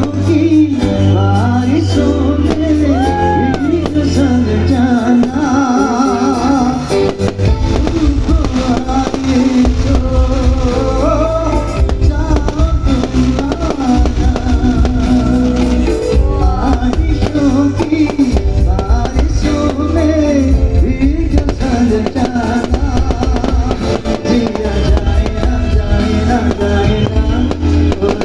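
Loud live dangdut band music: a singer's wavering vocal line over electric guitar, heavy bass and drums.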